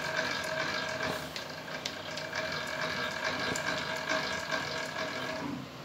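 Small electric machine motor running with a steady whine, under irregular light metallic clicks and ticks; it stops shortly before the end.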